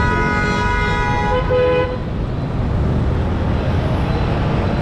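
A vehicle horn gives one long, steady honk lasting about two seconds and then stops. Steady traffic and road noise runs under it.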